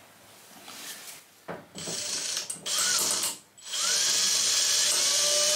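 Cordless drill drilling out the fastener of a small metal identification plate on a steel scooter frame. It runs in short bursts from about a second and a half in, stops briefly, then runs steadily from about four seconds in with a motor whine that rises and then holds.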